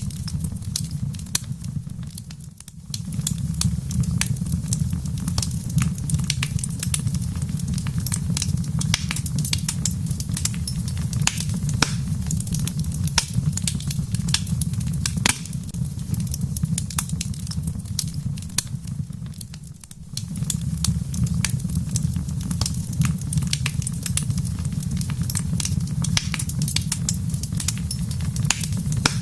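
Wood fire crackling in a fireplace: many sharp pops and snaps over a steady low rumble, which dips briefly twice, about two and a half seconds in and again near twenty seconds.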